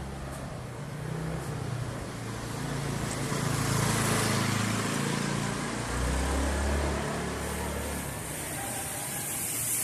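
A motor vehicle passing close by: engine and road noise swell to a peak about four seconds in, then fade, with a deep low hum a couple of seconds later.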